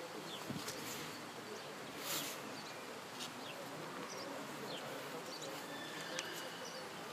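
Small birds chirping repeatedly in short, falling notes over a steady background hiss, with a brief rush of noise about two seconds in.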